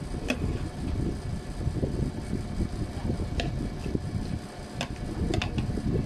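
Steady low rumbling background noise, with a few light clicks and taps as a bowl and a plastic container are handled while filling is mixed by hand.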